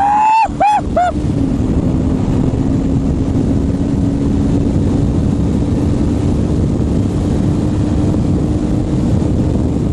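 Motorcycle engine running at a steady speed while riding, with heavy wind rush over the microphone.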